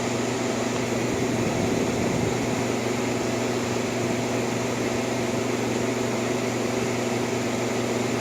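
1958 Carrier 4,500 BTU window air conditioner running in cooling mode: a steady rush of air from its blower with an even electrical hum from the motor and compressor.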